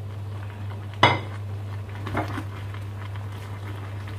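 A ceramic dinner plate set down with one sharp clink about a second in, followed by a lighter clink of kitchenware about a second later, over a steady low hum.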